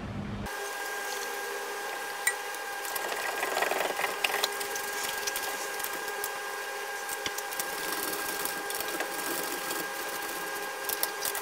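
Hand ratchet clicking in short runs as wheel nuts are run down and tightened, over a steady high hum.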